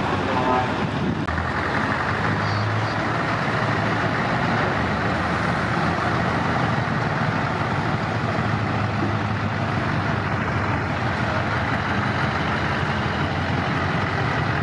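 Scania Streamline tractor units driving past one after another, their diesel engines running, heard as a steady dense noise.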